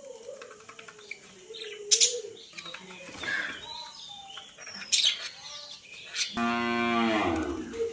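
Small birds chirping, with a couple of sharp clicks about two and five seconds in. Near the end comes a loud, drawn-out call of about a second and a half that falls in pitch.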